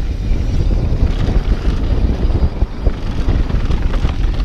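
Heavy wind buffeting the camera microphone over the rumble and rattle of a mountain bike riding fast down a wet trail.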